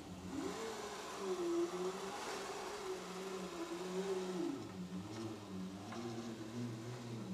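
CNC router gantry pushed by hand along the table, its drive back-driven with a low whirring hum that wavers in pitch as the pushing speed changes.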